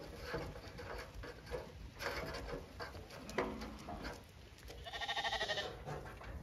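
Lambs bleating at the feed trough: a short bleat around the middle and a longer, wavering bleat about five seconds in, over faint scattered knocks and rustling from the feeding flock.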